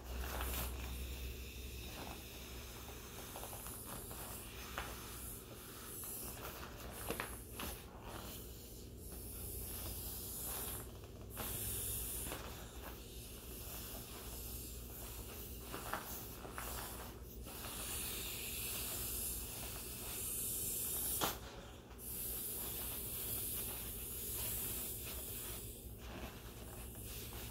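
A vinyl inflatable palm tree being blown up by mouth: long breathy blows into its valve, each a few seconds long, with short breaks between them for breath.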